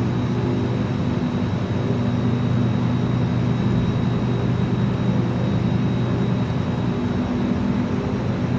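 Small light aircraft's piston engine and propeller running steadily, a constant low drone with a thin high tone above it.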